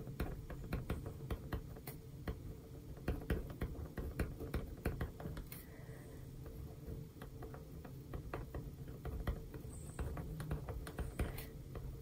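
Pen writing on a planner page: a run of small, irregular scratches and clicks of the tip moving on the paper.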